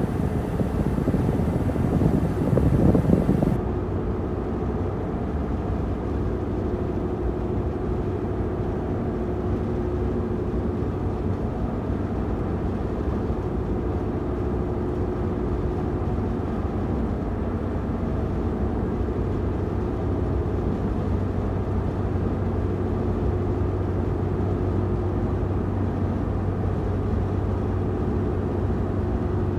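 Steady in-cab hum of a running 2014 Ford F-150 with its air conditioning on, air blowing out of the dash vent. A louder, hissier rush in the first few seconds drops away about three and a half seconds in, leaving an even hum.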